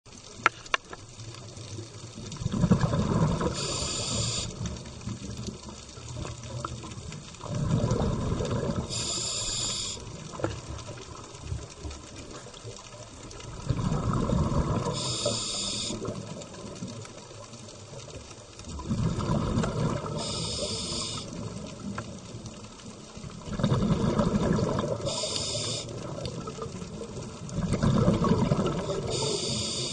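Scuba diver's breathing heard underwater: six breath cycles about every five seconds, each a rush of bubbles with a short, high hiss.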